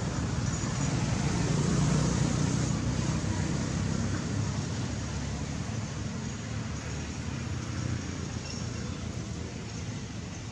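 Steady low rumble of outdoor background noise, like distant road traffic, swelling about two seconds in and slowly fading.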